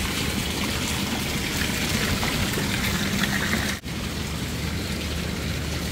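Steady trickling and sloshing of swimming-pool water close to the camera, with a brief break just before four seconds in.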